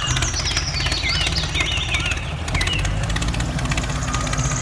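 Engine sound of a small tractor running steadily: a rapid, even chugging with a deep low hum under it.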